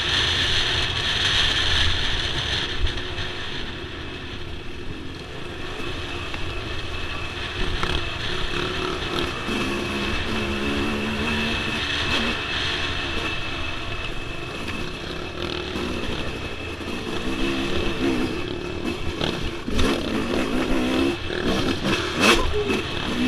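Yamaha dirt bike engine running under way on a dirt trail, its pitch rising and falling as the throttle is opened and closed, with a steady rumbling rush underneath. A few sharp knocks near the end.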